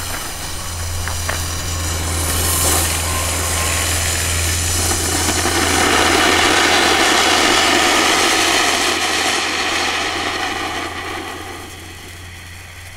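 Weco Hans Dampf silver fountain firework burning: a steady rushing hiss of spark spray that swells to its loudest midway and dies down near the end. A steady low hum runs underneath.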